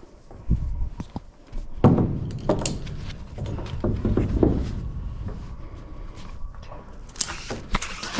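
Knocks and low rumbling of handling noise while magnet fishing from a dock, then a splash of water near the end that throws spray.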